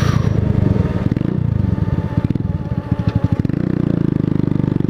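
A 125cc cruiser motorcycle's engine running on the move: the note drops about a second in and chugs in slow, separate firing pulses through the middle, then picks up and steadies near the end.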